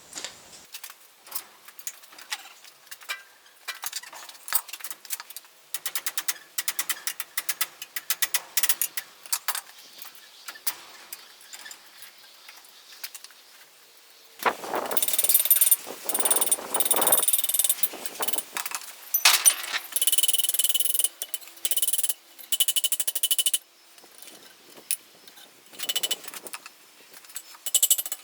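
Hammer striking steel on an anvil while a piece of bar is being bent: scattered light taps and clinks at first, then, about halfway through, two long runs of rapid ringing blows, followed by a few more taps near the end.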